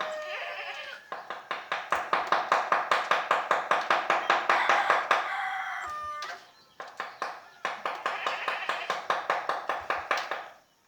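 Carving mallet tapping a chisel into teak in a fast, even rhythm of about five strokes a second, with a brief break about six seconds in and stopping just before the end. A short animal call sounds over the tapping at the start and again around five seconds in.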